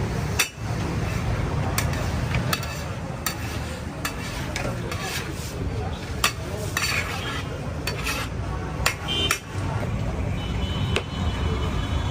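Metal ladle scraping and clanking against a large cooking pot as meat is stirred and fried, with irregular sharp clanks over a steady sizzle and a low rumble.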